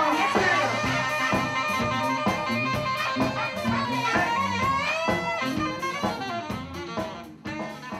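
Band music with saxophone or brass lines over a drum kit, fading out near the end.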